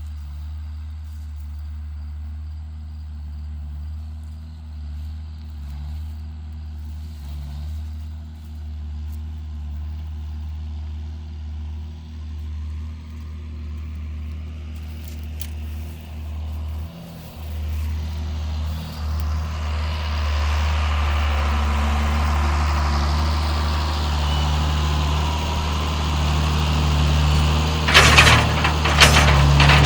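John Deere 7610 tractor's diesel engine running steadily, then growing louder and working harder from about two-thirds of the way in. Several sharp clanks near the end.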